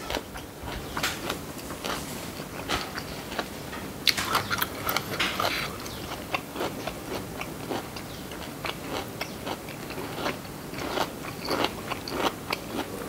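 A person chewing food close to the microphone, with many irregular small crunches and clicks.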